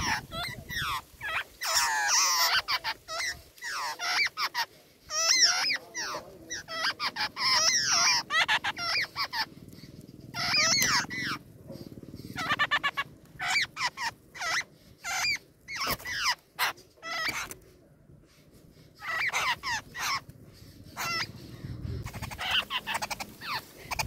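Nestlings begging in the nest: bouts of shrill, rapid, repeated calls with short pauses between them, and a quieter spell of a couple of seconds about three-quarters of the way through.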